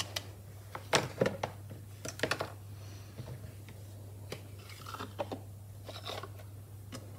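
Hands handling craft supplies on a cutting mat: ink pad cases and blending brushes picked up, set down and slid, giving a scattering of light knocks and rustles over a steady low hum.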